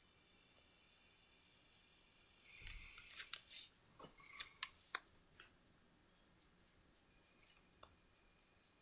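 Mechanical pencil sketching on sketchbook paper: short, quick scratchy strokes about three a second, with a louder stretch of scratching and paper rustling from about two and a half to five seconds in.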